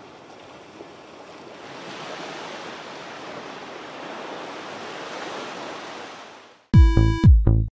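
Ocean waves sound effect: a rushing wash of sea noise that swells and then fades away. Near the end, electronic music with a heavy, evenly repeating beat cuts in abruptly.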